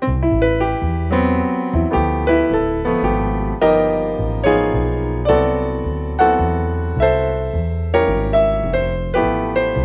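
Background music: a piano or electric-piano tune with a steady bass line and notes struck about every half second.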